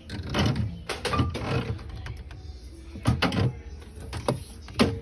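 Snack packages and drink containers being handled and set down: several irregular short bursts of rustling, knocking and clattering.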